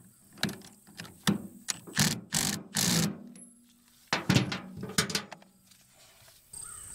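Irregular metal clicks and clanks of hand tools on a brush hog's shear bolt and lock nut as the replacement bolt is fitted and tightened, with a short scraping run a little before the middle.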